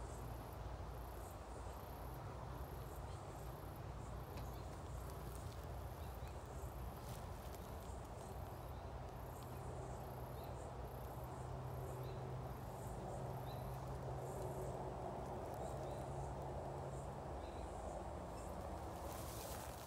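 An insect chirping outdoors in short, very high-pitched pulses at an even pace, about three every two seconds, over a faint steady background. The chirping fades in the last few seconds.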